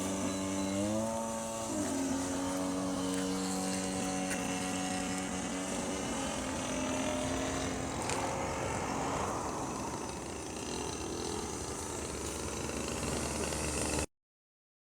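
A radio-controlled model aircraft's motor and propeller running with a steady whine. Its pitch climbs about a second in, then holds, and it fades to a rougher hum before the sound cuts off abruptly near the end.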